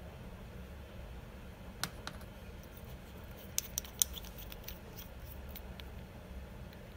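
Small sharp clicks and taps of a stainless steel rebuildable dripping atomizer's parts being handled as its drip tip is worked out: one click about two seconds in, then a quick cluster of clicks around four seconds, over a low background hum.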